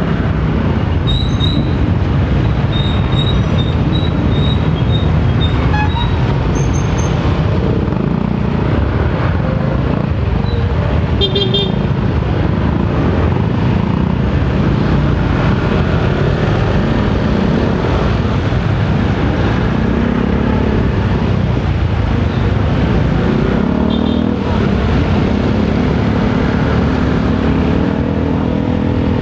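Honda motorcycle engine running steadily as the bike is ridden through town traffic, with road and traffic noise around it. A few short high-pitched beeps come in the first several seconds, and brief tones come again about eleven and twenty-four seconds in.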